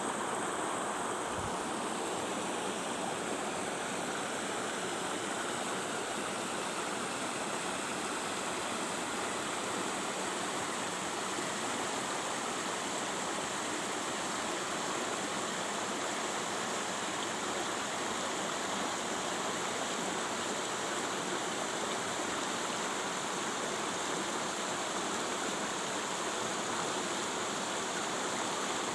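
Steady rushing of flowing water, unbroken and even in level.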